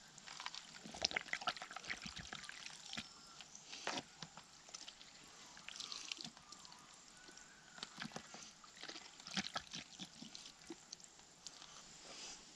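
Water squirted from a plastic squeeze bottle, trickling and splashing faintly in a plastic gold pan, among irregular small clicks and knocks of handled plastic.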